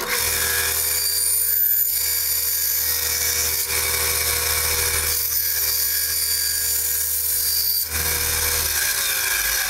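Small benchtop bandsaw running steadily and cutting through a hard plastic cover, with its motor humming and the blade sound shifting slightly as the piece is fed.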